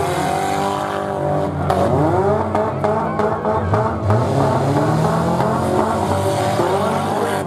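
Several four-cylinder demolition derby cars running hard at once, their engines revving up and down in pitch, with a few short knocks.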